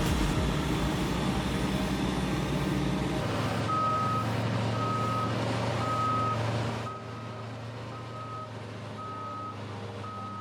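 A heavy vehicle's engine running steadily. From about three and a half seconds in, its back-up alarm sounds a steady beep about once a second while it reverses.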